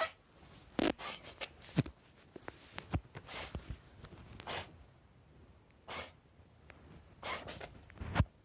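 Cat reverse sneezing: a series of short, sharp, noisy inhalations through the nose, roughly one every second or so, with a few soft knocks among them. Reverse sneezing is a harmless physiological reflex (paroxysmal respiration).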